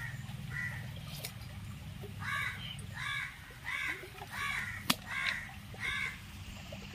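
A crow cawing over and over, about six caws roughly two-thirds of a second apart after two fainter ones at the start. One sharp click about five seconds in, over a low steady rumble.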